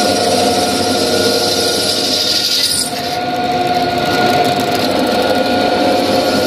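Bench drill press running, its twist bit cutting through a steel angle iron, with a steady whine over the grind of the cut. The sound dips briefly about three seconds in.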